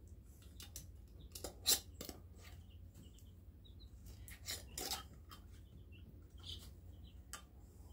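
Metal canning screw band clicking and scraping against the threads of a glass pint jar and its lid as it is twisted on and then taken off again. There are a few short sharp clicks, the loudest about two seconds in, and a longer scrape around five seconds in.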